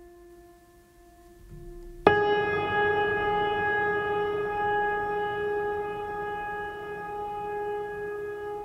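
Background music: a soft held tone, then about two seconds in a louder note, rich in overtones, starts sharply and rings on, slowly fading.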